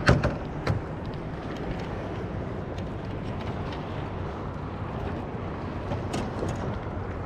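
A landed fish being handled in a landing net in an aluminum boat: a few sharp knocks and rattles, the loudest right at the start, another soon after and a faint one near the end, over a steady low outdoor rumble of wind and water.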